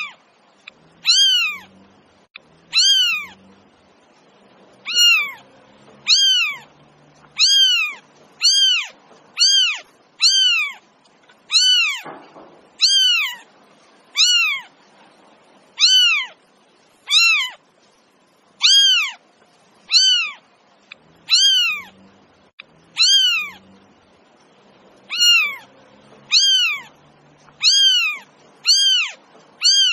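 A cat meowing over and over, about every one to two seconds: short, high-pitched meows that each rise and fall in pitch, all nearly alike.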